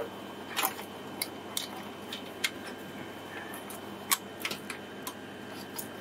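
Irregular small clicks and taps of a motherboard and fingers against a sheet-metal computer case as the board is slid into place on its standoffs and against the IO shield.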